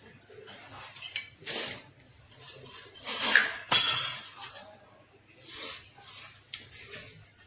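Kitchen utensils knocking and clinking against a karai as cooking oil is added to raw fish and vegetables: several short scrapes and knocks, with one sharp clink about four seconds in the loudest.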